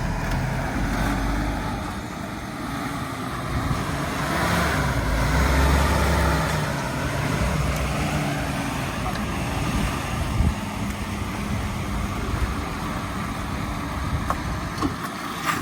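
1965 Ford Mustang's engine running as the car is test-driven, the engine note rising and falling with throttle; the car is being driven to test its brakes.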